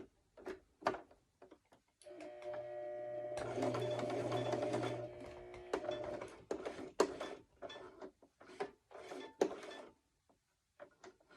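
Domestic electric sewing machine stitching: its motor runs steadily with a hum for a few seconds, then it goes in short stop-start bursts as the fabric is sewn slowly around the appliqué.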